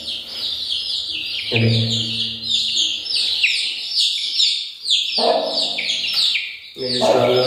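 Aseel chicks peeping: a steady run of short, high, falling peeps, about three a second. A lower pitched sound comes in twice, briefly near two seconds and again for over a second near five seconds.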